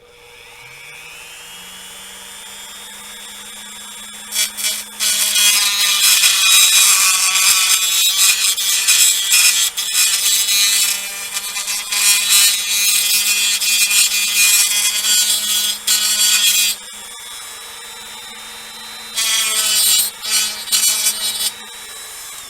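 Small rotary tool with a cutting wheel spinning up to a steady whine, then cutting a notch into a plastic model-kit part to seat a wire. The cutting comes in two long runs, about twelve seconds and then two, with the motor running on its own between them.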